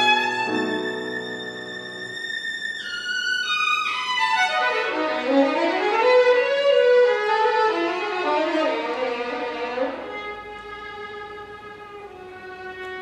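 Solo violin playing a virtuoso, cadenza-like passage: a long high held note, then a fast run falling about three octaves, then quick runs rising and falling. A low piano chord sustains under it for the first two seconds.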